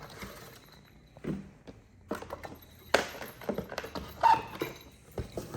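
Scattered clicks and knocks of a Northern Light rattle reel being handled and opened up, the loudest knock about three seconds in and a brief clink a little after four seconds.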